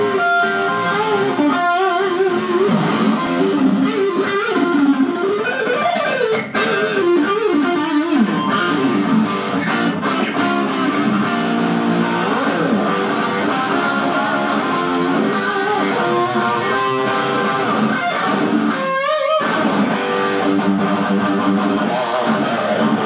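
White single-cut LTD Deluxe electric guitar played lead: melodic lines with string bends and held notes, with a short break about nineteen seconds in.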